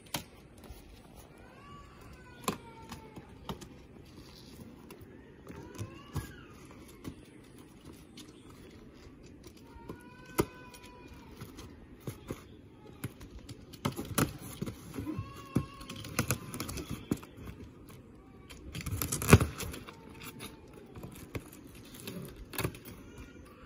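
A utility knife slitting the packing tape and cardboard of a large carton, with scraping and light knocks on the cardboard. The loudest part, a longer scrape, comes about three-quarters of the way through.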